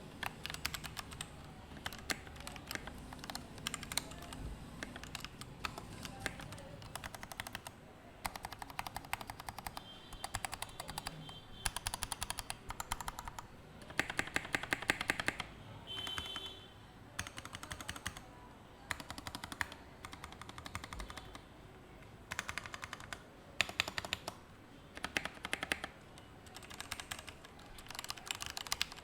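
Typing test on a newly built DZ60 60% mechanical keyboard: fast runs of keystroke clicks in bursts of a second or two, with short pauses between.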